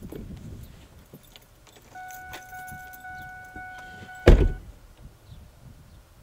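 Car door slammed shut once, loud, while the car's electronic warning chime pulses about twice a second. The chime starts about two seconds in and stops just after the slam. Small clicks and shuffling come from someone settling into the seat.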